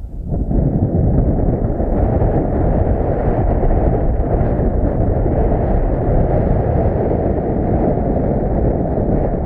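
Wind buffeting the microphone: a loud, steady, deep rushing noise, with a brief drop right at the start.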